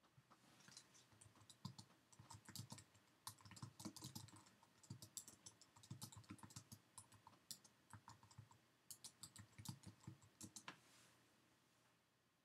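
Typing on a computer keyboard: a quick, irregular run of small key clicks that stops near the end.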